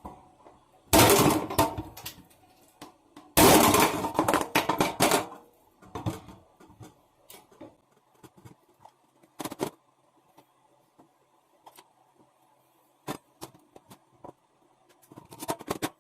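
Two loud clattering bursts about a second in and three seconds in, each lasting one to two seconds, then scattered knocks and clicks of hard objects being handled, with a faint steady hum underneath.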